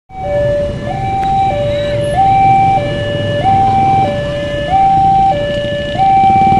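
Railway level-crossing warning alarm sounding its two-tone electronic signal, switching between a lower and a higher tone about every two-thirds of a second, the warning that a train is approaching. Motorcycle engines run underneath.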